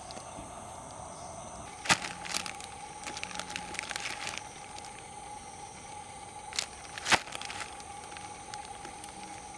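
Wood campfire crackling, with sharp pops about two and seven seconds in and a run of smaller crackles in between, over a steady chirring of insects.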